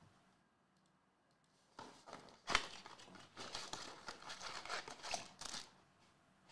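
Paperboard trading-card blaster box being torn open by hand: quiet for nearly two seconds, then a sharp rip about two and a half seconds in, followed by a few seconds of uneven tearing and crinkling as the flap comes away.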